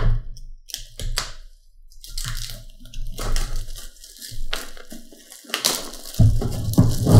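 Plastic shrink wrap being bitten open, then torn and crinkled off a cardboard board-game box, in irregular crackles and rustles with sharp snaps. Low bumps of the box being handled come near the end.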